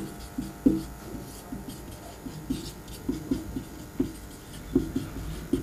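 Marker pen writing on a whiteboard, a series of short, separate strokes.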